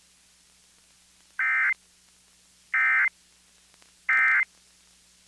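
Emergency Alert System end-of-message data bursts on the radio: three short, identical electronic bursts, each about a third of a second long and about 1.3 seconds apart. They mark the end of the relayed National Weather Service severe thunderstorm warning.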